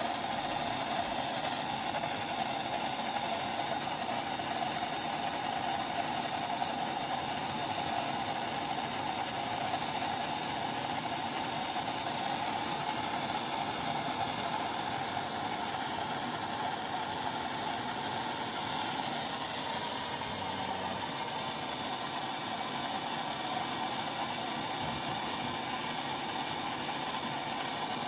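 Gas blowtorch flame burning with a steady, unbroken hiss while it heats a fluxed pipe joint for soldering.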